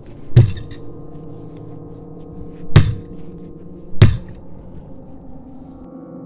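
A fist pounding three times on the plywood wall of a wooden box from inside: heavy thuds, the second and third little more than a second apart. Under them runs a low, steady droning music score.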